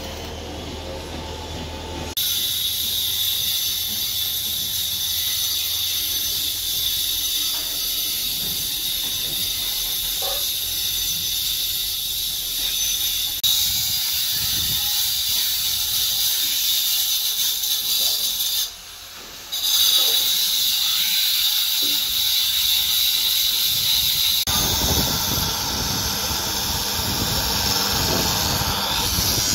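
Angle grinders cutting, a steady high whine with a hissing rush. The sound changes abruptly in level and tone several times, drops out briefly near the middle, and is heavier and fuller in the last few seconds.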